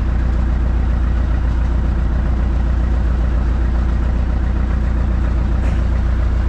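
Engine aboard a fishing boat running steadily at an even, low idle-like hum.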